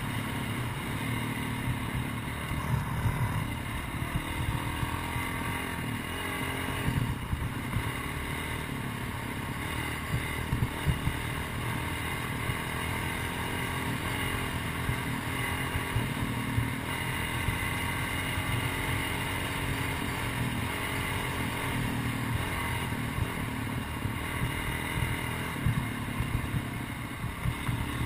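CR450 motocross bike's engine running steadily under way on a dirt trail, heard from the rider's helmet, with short louder peaks scattered through.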